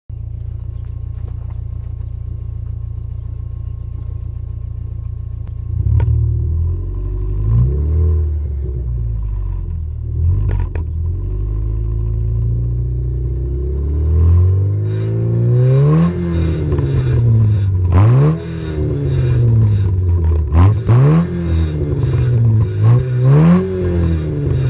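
Ford Escort 1.4's four-cylinder engine heard at the exhaust tailpipe. It idles steadily at first, then from about six seconds in it is revved, with four sharp throttle blips in the second half, each rising quickly and falling back.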